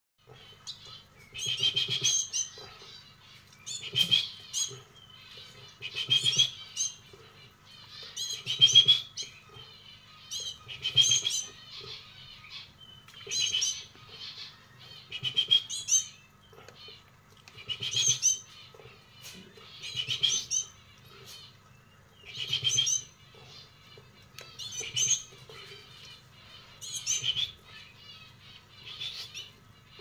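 Young canary begging while being hand-fed from a stick: loud bursts of rapid high chirping about every two seconds, with quieter chirps between, along with wing flutters.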